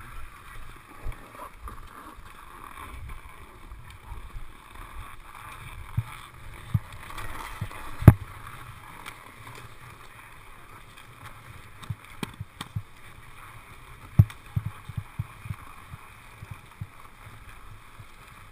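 Snowboard binding straps being handled and buckled: scattered knocks and clicks over a low steady rustle, the loudest a sharp knock about eight seconds in, and a quick run of clicks in the last few seconds. Heard through a helmet-mounted GoPro Hero2.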